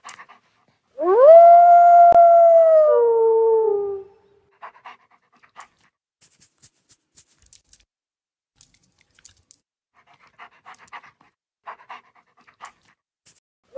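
Wolf howl played by Google Search's 3D wolf model: one loud howl starting about a second in, rising quickly, holding a steady pitch, then dropping and breaking into a lower tone before it ends near the four-second mark. Faint short sounds follow, scattered through the rest.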